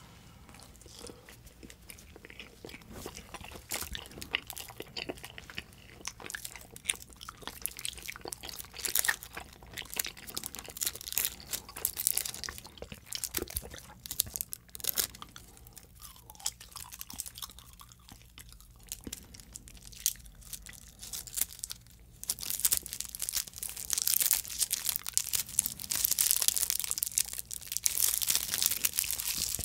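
Close-miked edible tape candy being peeled from its roll and bitten, with dense sticky crinkling, crackling and crunching. It gets louder about three-quarters of the way in.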